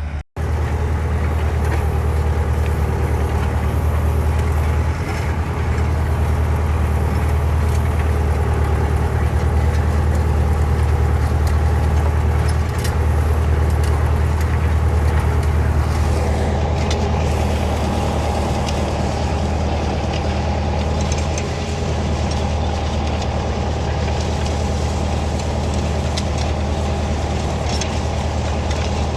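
Tractor engine running steadily under load: a loud, even low drone with a momentary break just after the start.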